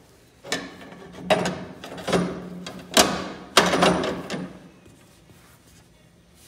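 Scrub deck brush cover being refitted on a PowerBoss Nautilus HD scrubber-sweeper: a run of about five clunks and rattles over the first four seconds.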